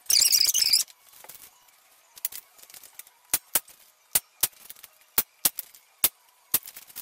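A loud burst of noise for under a second, then a corded electric staple gun firing staples into the pine frame's corners: about ten sharp clacks, mostly in pairs.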